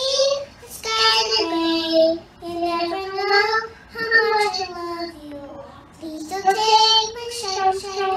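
A young girl singing a song into a handheld microphone, in short phrases of held notes with brief breaks for breath.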